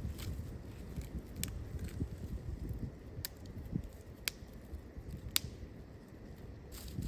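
Wind rumbling steadily, with about five sharp, isolated clicks or crackles scattered through it.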